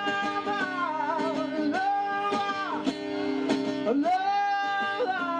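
Song with acoustic guitar and a singer holding long, wavering sung notes.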